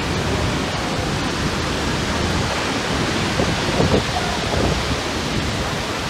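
Rushing water of a large waterfall, the Lower Falls of the Yellowstone River, heard close up from its brink as a steady, even noise.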